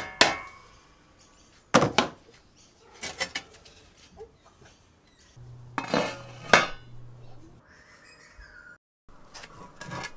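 Rusty pressed-steel tricycle seats being handled and set down on a wooden workbench. There are several separate metallic clanks and clinks, each ringing briefly.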